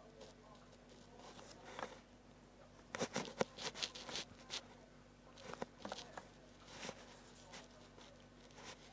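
Short scratchy strokes and taps of a drawing tool on paper, coming in two quick flurries, the first about three seconds in and the second about halfway through, over a faint steady hum.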